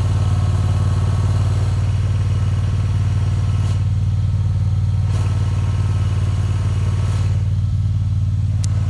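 Riding lawn mower engine running at a steady speed, a constant low hum.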